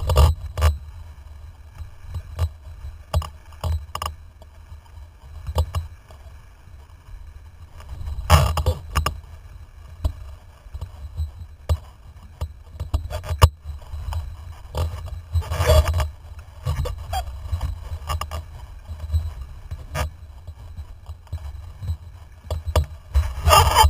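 Wind rumbling on the microphone of a boom-mounted camera on a windsurfer under sail, with water hissing and splashing against the board and rig and frequent small clicks and rattles from the mount and gear. Louder surges of spray come about eight seconds in and again around sixteen seconds.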